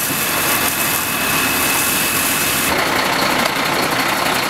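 Fire hose spraying water onto a burnt-out wheelie bin, over the steady running of a fire engine. A little over halfway through the spray gives way abruptly to the fire engine idling.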